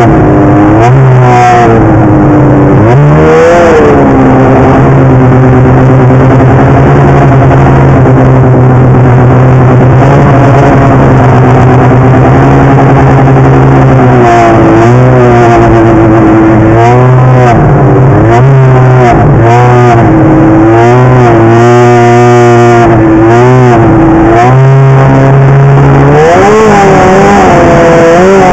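Polaris 800 two-stroke snowmobile engine running under way, loud. It holds a fairly steady pitch through the first half, with one brief drop and pickup early. Then it revs up and down over and over, about once a second, as the throttle is worked across the snow.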